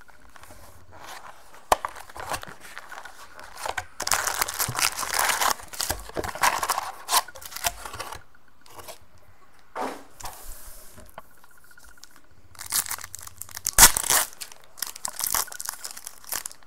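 A trading-card box being opened and its card packs handled, with bursts of rustling and crinkling wrappers and sharp clicks; near the end a card pack's wrapper is torn open.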